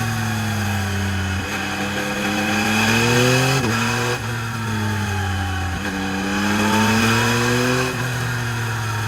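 Yamaha MT-09 SP three-cylinder engine through its stock exhaust, pulling under acceleration: the pitch climbs twice and drops suddenly each time as it shifts up, about three and a half seconds in and again near the end.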